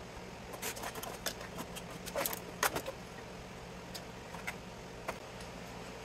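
Metal parts clinking and rattling against a sheet-metal drive chassis as components are pulled out by hand, a cluster of louder clinks about two to three seconds in, over a steady low hum.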